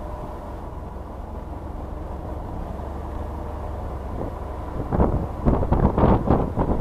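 Mercedes SLK being driven on track, heard from inside the car: steady engine and road noise, with louder, uneven bursts of noise from about five seconds in.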